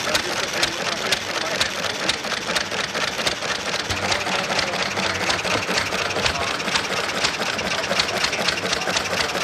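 Single-cylinder hit-and-miss stationary engine running, a rapid, even ticking clatter with a low chug beneath.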